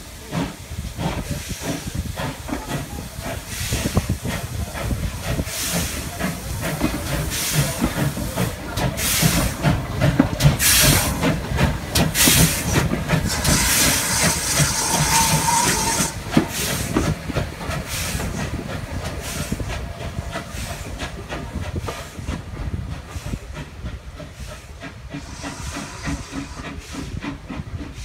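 GWR 14xx 0-4-2 tank engine No. 1450 pulling its auto train away from a station, with repeated exhaust chuffs and hissing steam as the coaches roll past. It is loudest midway, then fades as the train pulls away.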